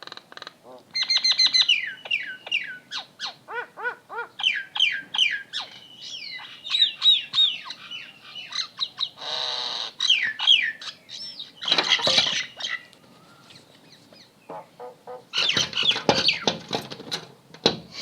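Birds calling over and over in quick runs of short, falling chirps and calls, with two denser, noisier bursts of calling, one about two-thirds of the way through and one near the end.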